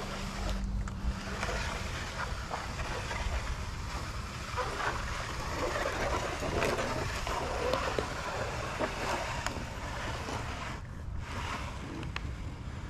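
Steady wind noise rushing over the microphone, with a few light clicks and knocks.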